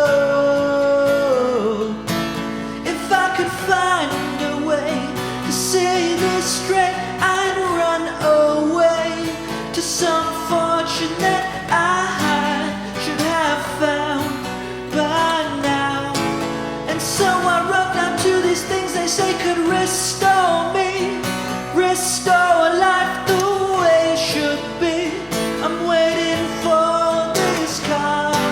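Pop-rock song: singing over guitar accompaniment, with a melody line that slides between notes.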